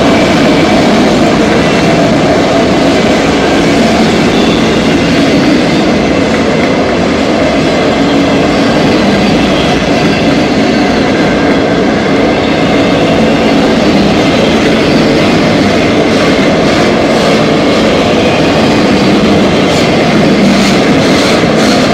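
Autorack freight cars of a CSX manifest train rolling past, a steady, loud rumble of steel wheels on the rails.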